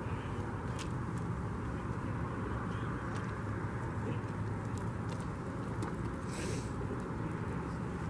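A steady low motor hum, with a few faint clicks and a brief hiss about six and a half seconds in.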